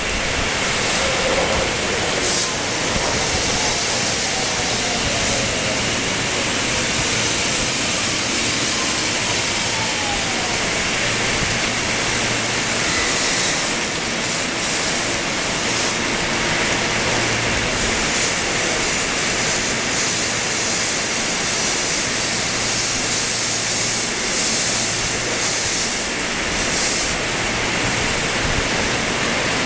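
Heavy rain pouring down in a steady, loud, even hiss. Faint falling whines come through it in the first ten seconds, and a low hum comes and goes.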